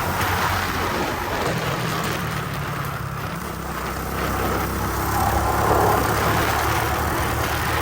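Motorcycle engine running under way, with wind and road noise on the microphone; the low engine hum steps in pitch a little past one second in and changes again toward the end.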